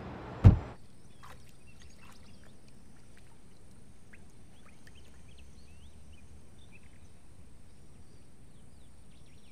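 A car door slams shut once, sharply, about half a second in. After that, a quiet garden background with small birds chirping faintly now and then.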